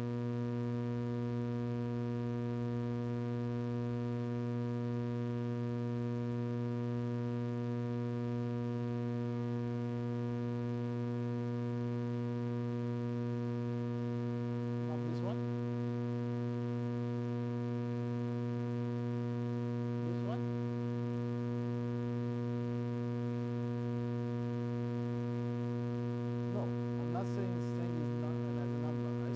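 Steady electrical mains hum, a constant buzzing stack of tones, with faint voices a few times and most near the end.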